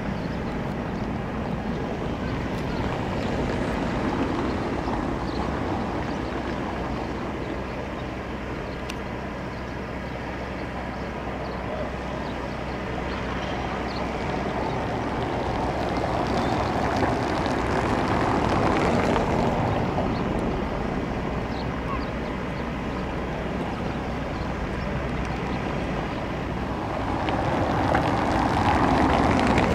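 Engine of a mobile boat hoist (travel lift) running steadily, with wind noise on the microphone. It swells a little louder near the middle and again near the end.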